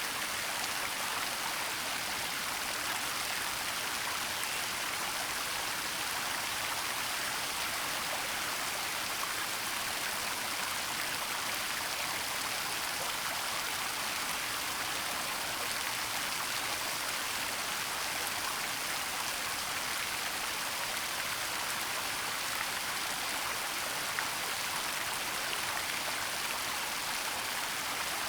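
Waterfall water falling and splashing: a steady rushing hiss that stays even throughout.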